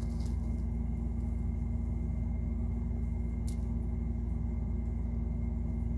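Steady low mechanical hum with a faint high tone above it, and a single short click about three and a half seconds in.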